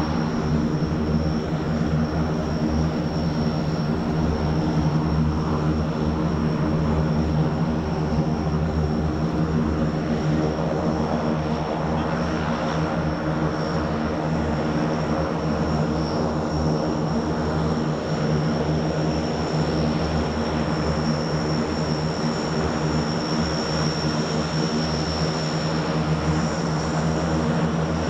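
Antonov An-26's twin turboprop engines running steadily at taxi power: a continuous propeller drone with a thin, steady high turbine whine above it.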